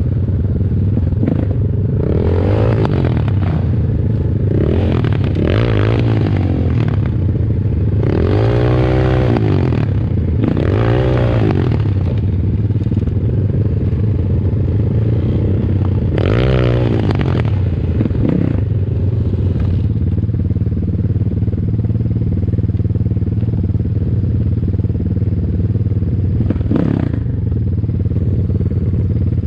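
ATAKI DR 250 enduro motorcycle engine running while being ridden off-road, with the revs rising and falling in several surges during the first half, then holding steadier. Clattering of the bike over rough ground runs alongside.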